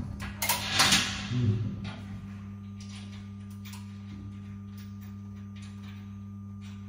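Metal clanking and scraping from hand tools working on overhead fittings for about the first two seconds, then a few faint clicks over a steady low hum.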